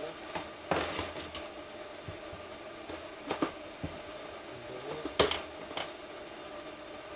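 Metal engine parts and hand tools clinking and knocking while the clutch of a Suzuki DRZ400 engine is being assembled: about five separate knocks spread over several seconds, over a faint steady hum.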